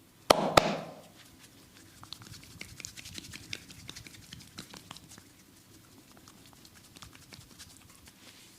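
Massage sounds of hands on bare skin: two sharp, loud slap-like pops in quick succession, then a run of small quiet pats and clicks.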